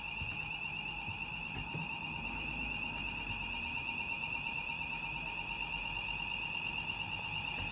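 An electronic alarm or warning buzzer sounding inside a Dennis Dart SLF bus: one steady, unbroken high-pitched tone with a fainter lower tone under it.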